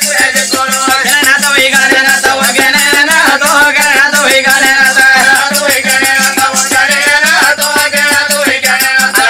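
Telangana Oggu Katha folk music: a melody over percussion keeping a steady, fast beat.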